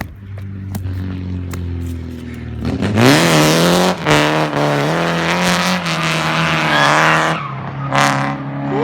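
Nissan 240 with a welded differential revving up about three seconds in and sliding through a corner, its rear tires squealing for about four seconds while the engine holds high revs. The engine drops off, then gives a short second burst near the end.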